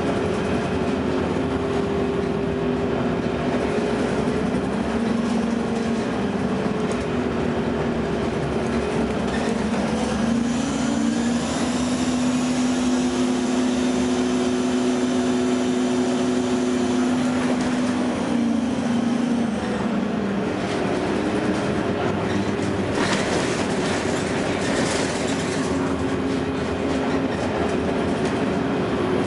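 A 2009 Gillig low-floor hybrid bus with a Cummins ISB diesel and Allison EP40 hybrid drive, heard from inside while under way: a steady drone with whining tones that shift up in pitch about ten seconds in and glide back down near twenty seconds, over road and cabin noise. A rougher, rattling stretch comes around twenty-three to twenty-five seconds.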